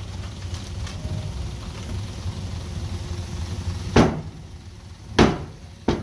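Heavy diesel earthmoving machine, a bulldozer, running with a steady low rumble. Near the end come three loud knocks, a second or less apart.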